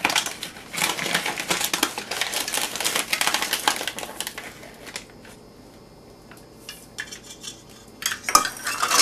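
A quarter cup of sugar being measured out and tipped into a bowl of cream cheese: a dense scraping, rattling kitchenware noise for about five seconds, then quieter, with a few sharp clicks near the end.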